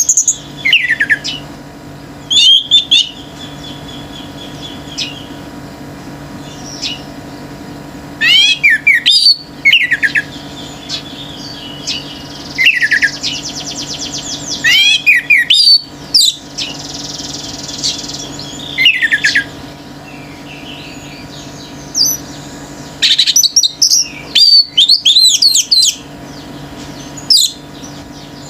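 Orange-headed thrush singing loud bursts of quick, falling whistled phrases every few seconds, with a softer rapid trill between bursts in the middle and a faint steady hum underneath.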